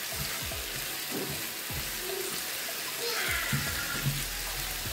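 Chicken cubes with sliced onion and green chili sizzling in oil in a frying pan: a steady frying hiss, with a few soft strokes of the spatula as the pan is stirred.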